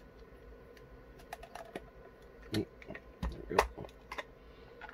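Black plastic case of a cheap handheld EMF detector clicking and knocking as it is handled and pried apart. Scattered light clicks, with a few louder knocks between about two and a half and three and a half seconds in.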